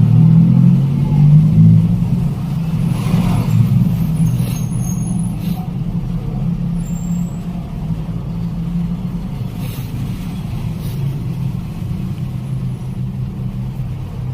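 Steady low engine rumble, like a motor vehicle running close by, with a few light clicks over it.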